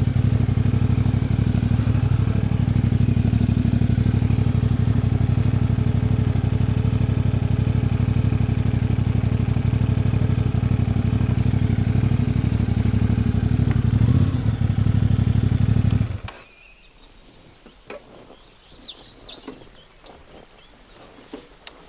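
Motor vehicle engine running steadily, then cutting off abruptly about three-quarters of the way through. A bird chirps briefly afterwards.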